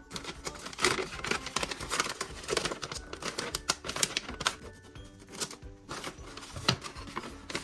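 Small plastic and cardboard packaging being handled and unpacked: irregular light clicks, taps and rustles, over soft background music.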